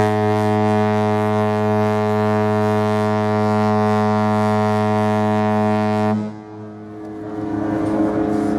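Cruise ship Mein Schiff 3's horn sounding one long, deep, steady blast on departure from port, stopping abruptly after about six seconds and leaving quieter background noise.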